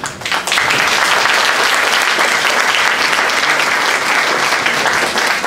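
Audience applauding: dense, steady clapping that starts just after the beginning and tails off near the end.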